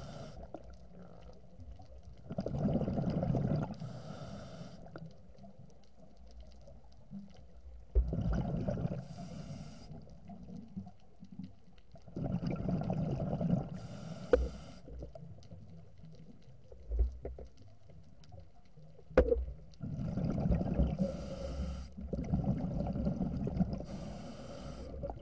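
A scuba diver breathing underwater through a regulator: about five rumbling bursts of exhaled bubbles a few seconds apart, several followed by a short hiss of air. A few sharp knocks come in between.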